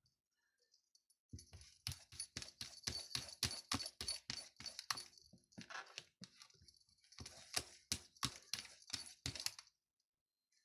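A rapid series of light knocks and clicks, about three a second, for roughly eight seconds, with a faint metallic ringing above them.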